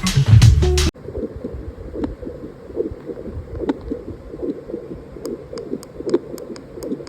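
Music cuts off about a second in. Then a Contec ultrasound fetal Doppler's speaker plays a fast, even pulsing heartbeat sound at about two to three beats a second, with a few light clicks near the end.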